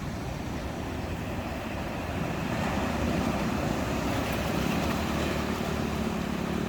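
Ocean surf washing onto the beach with wind buffeting the microphone. A low motor hum builds in over the second half.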